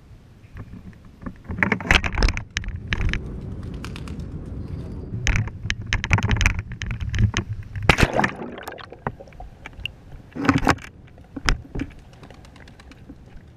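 Irregular knocks and rattles of a caged GoPro, weighted with a sinker, swinging and bumping on its rope as it is lowered down the side of a pier, over a low rumble. The knocks cluster and die away near the end, leaving it quieter.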